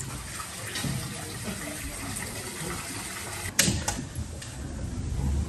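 Water running and splashing, with a sharp knock about three and a half seconds in.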